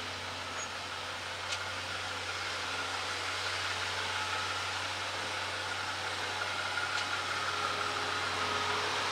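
Jeep Wrangler JL engine running at a low crawl as it creeps closer through a narrow rock slot, a steady low hum under hiss that grows slowly louder, with a couple of faint clicks.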